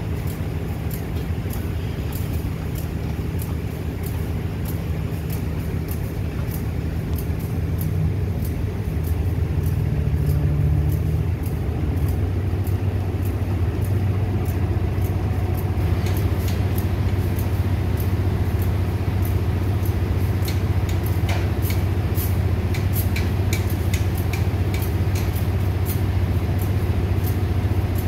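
Diesel engine of a passenger train standing at a station, running at idle as a steady low drone that gets deeper and louder about ten seconds in. Faint rapid ticks sound over it, thickening in the second half.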